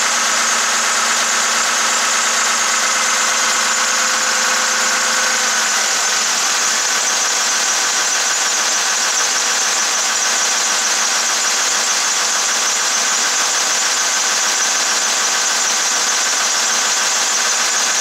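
John Deere marine diesel engine running steadily, heard close up in the engine room, with one steady tone in it dropping out about six seconds in. It runs without surging or hesitation, with the loose, fractured lift-pump fuel fitting that had let air into the fuel now replaced.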